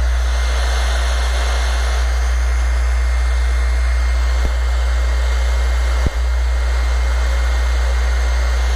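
Electric heat gun blowing steadily with a constant whine, warming the vinyl wrap film so it conforms to the Jeep's body.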